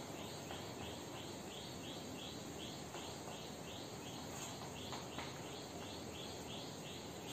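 Faint, even chirping of a cricket, about three short high chirps a second, with light scratching and tapping of chalk on a blackboard.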